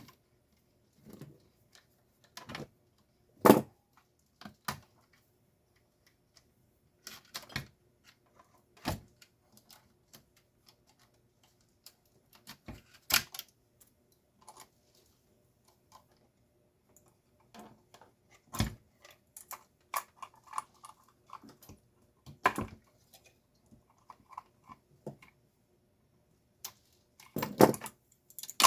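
Scattered clicks, clacks and knocks of small hard parts and tools being handled while a Stanley garage door opener's gearbox is taken apart, at an uneven pace, the loudest knock about three seconds in and a quick cluster near the end.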